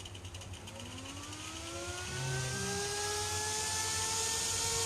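Mining-machine cooling fan spinning up on a fan socket under test: a rising whine that climbs in pitch and gets louder, then holds steady at full speed. The fan running shows that socket number 2 works.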